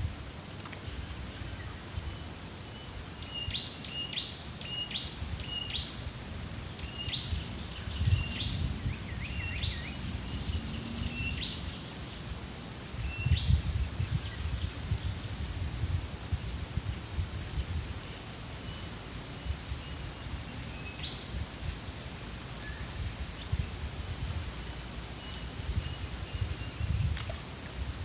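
Steady high-pitched drone of insects, with short bird chirps coming in bursts through the first half and once more later on, over an uneven low rumble of outdoor air.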